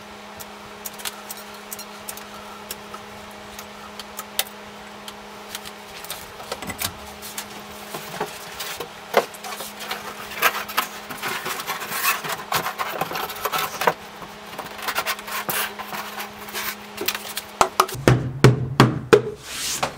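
A foam-core Kerdi-Board wall panel being handled and worked into place in a small shower stall, with rubbing, scraping and light knocking, over a steady low hum. Near the end comes a run of louder slaps as the board is hit flat by hand to spread the adhesive behind it.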